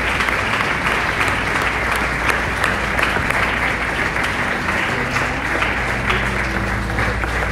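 Congregation applauding steadily, with faint held low music notes coming in underneath about halfway through.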